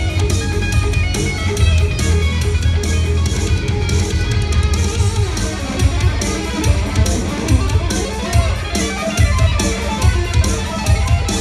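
Live electric guitar music over heavy bass and a steady beat.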